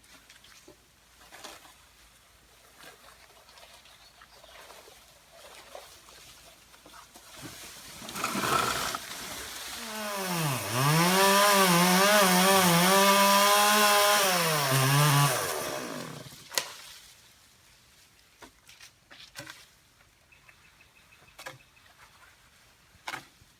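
Two-stroke chainsaw revving up from a low dip and running at a steady high pitch at full throttle for about five seconds, then dropping off and stopping. A few faint knocks and clicks follow.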